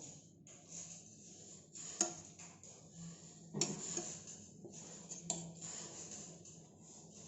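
A utensil clinking sharply against cookware three times, with scraping and rustling between the clinks.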